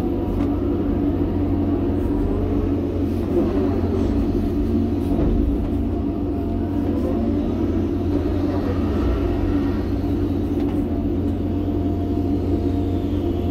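John Deere 350G excavator's diesel engine running steadily under working load, heard from inside the cab. Faint whines rise and fall over the engine hum as the boom and bucket move dirt.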